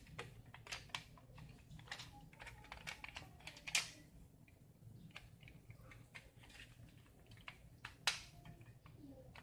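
Faint plastic clicks and rattles as the parts of a black plastic toy pistol are handled and its spring is worked back into place, with a sharper click about four seconds in and another near eight seconds.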